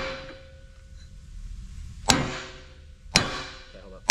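Sledgehammer blows on a steel pipe driver, driving a bearing deeper into the bore of a Caterpillar D9R equalizer bar so its snap ring can be fitted. The ring of a blow just before dies away, then three more land about a second apart in the second half, each leaving a metallic ring.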